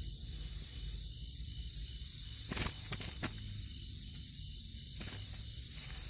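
Night insects chirring steadily with a fast pulsing high trill, and a few crackles of dry grass being rustled by hand a little past halfway.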